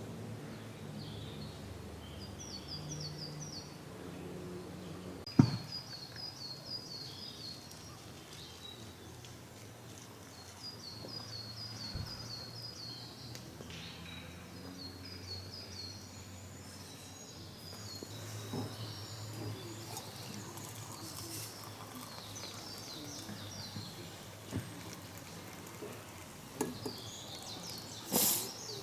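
Small birds singing several runs of short, quickly repeated falling notes over a low steady hum. A single sharp knock comes about five seconds in, and a few clinks come near the end.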